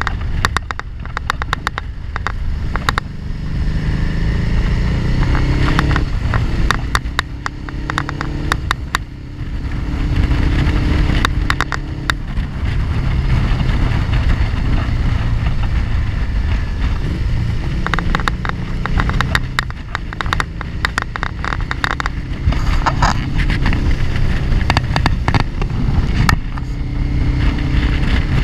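Motorcycle engine running under way, its pitch rising and falling with the throttle, with wind buffeting and crackling on the microphone.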